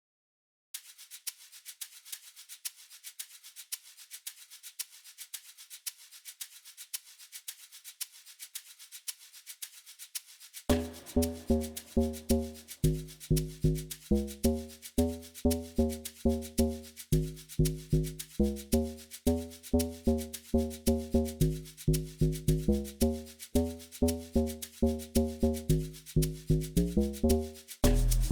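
Amapiano beat playing back: a fast shaker loop alone at first, then about a third of the way in a loud, bouncy pattern of short pitched bass and melody notes joins it, with a deeper bass note coming in at the very end.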